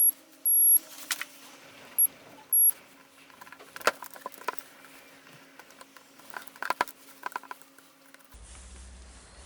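Four short, very high-pitched beeps in the first three seconds, the loudest sounds here, then scattered sharp clicks and light taps of small hard parts being handled.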